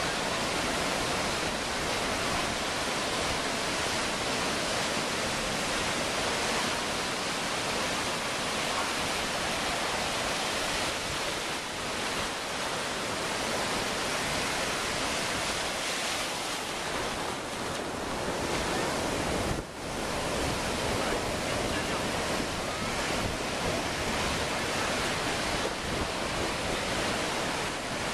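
Ocean surf breaking and washing up the shore, a steady rush of wave noise, with one brief drop-out about two-thirds of the way through.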